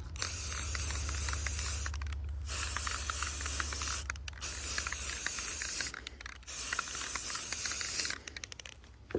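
Aerosol spray paint can hissing in four bursts of about one and a half to two seconds each, with short pauses between them, as a camouflage coat is dusted onto a rifle.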